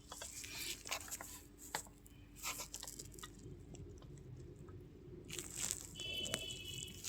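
Scattered crackles and rustles of handling noise over a faint steady hum, with a brief high tone about six seconds in.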